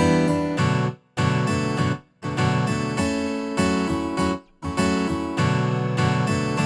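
Background music of strummed acoustic guitar chords, broken by short pauses every second or two.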